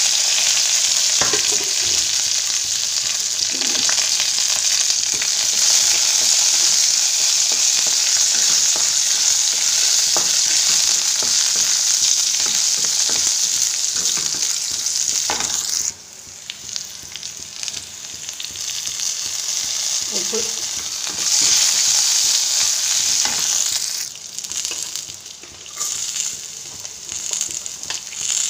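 Oil sizzling steadily in a nonstick kadai as shallots, curry leaves and dried red chillies fry for a tempering, with a few sharp taps of a wooden spatula on the pan. The sizzle drops suddenly about halfway and comes back loud a few seconds later.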